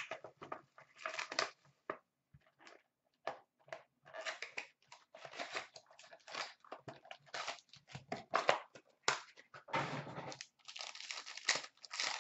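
Hockey card pack wrappers being torn open and crinkled by hand, in irregular short bursts of tearing and rustling with brief pauses between.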